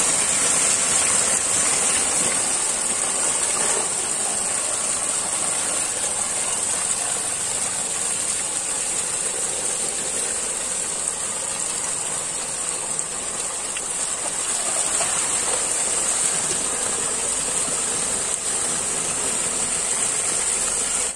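Water pouring out of a brick culvert's outlet and splashing down, a steady rush with a constant high-pitched hiss over it.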